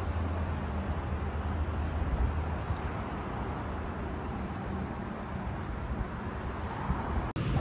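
Street ambience: steady road traffic noise with a low vehicle engine hum that fades out a couple of seconds in. The sound cuts off briefly near the end.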